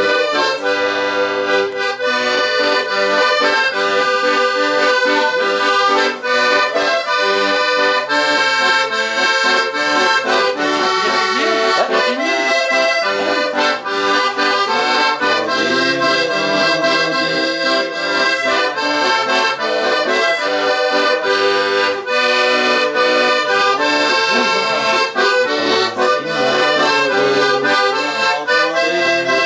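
Accordion playing a tune, a melody over held chords, without a pause.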